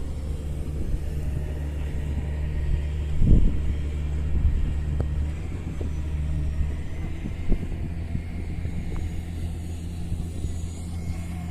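Low, steady engine drone of a motor vehicle, its tone shifting slightly about seven seconds in, with a brief low thump a little over three seconds in.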